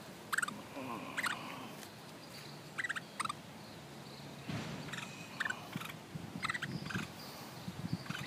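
Hispaniolan woodpeckers calling: short, sharp calls at scattered intervals of a second or more, with some low rustling in the second half.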